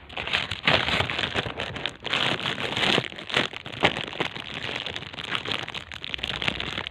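Plastic packaging crinkling and rustling, with continual small crackles, as a glass water bottle is pushed back into it.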